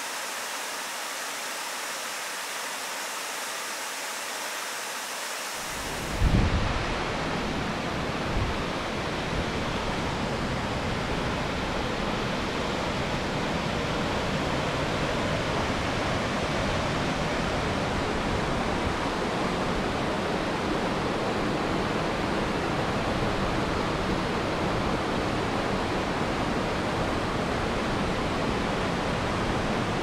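Waterfall rushing as a steady noise. About six seconds in it changes from a thin hiss to a fuller, deeper rush, with a brief thump, the loudest moment, at the change.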